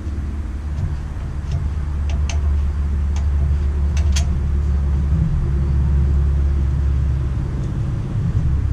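A low, steady rumble, with a few light clicks and taps from hands working plastic wiring connectors and parts inside a tractor's dashboard.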